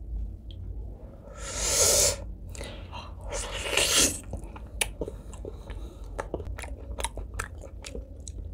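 Close-miked eating of braised pork leg. There are two loud noisy bursts, about a second and a half and four seconds in, as the meat is pulled apart and bitten, then wet open-mouthed chewing with rapid smacking clicks.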